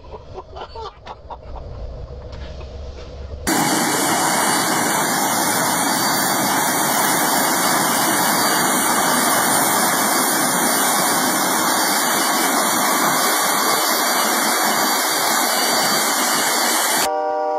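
Railway snow blower running flat out, blasting snow off the track: a loud, steady roar with a thin high whine over it. It starts abruptly about three and a half seconds in, after a quieter low rumble, and cuts off just before the end.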